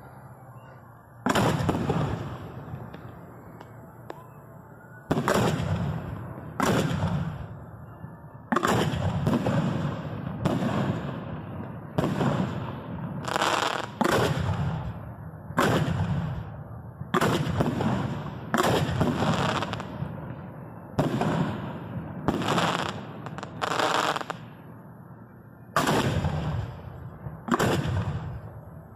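Professional fireworks display heard from the firing position: aerial shells launching from mortar tubes and bursting, a string of sharp booms one every second or two, each fading out. There is a quieter gap of a few seconds after the first boom.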